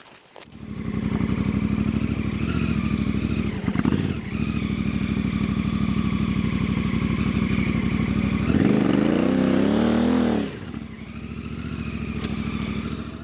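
Honda Africa Twin adventure motorcycle's parallel-twin engine coming in about half a second in and running at low revs, then revving up and back down as the bike pulls away, and dropping to a quieter drone that fades near the end as it rides off.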